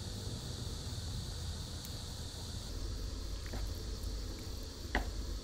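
Steady high insect chirring with a low rumble underneath, and a light clink of chopsticks against a stainless steel mess tin about five seconds in.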